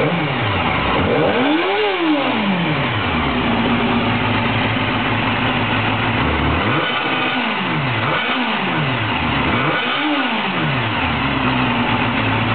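Honda CBR250R motorcycle engine through its stock silencer, idling and revved in four throttle blips that each rise and fall back to idle. There is one blip about two seconds in, then three close together in the second half.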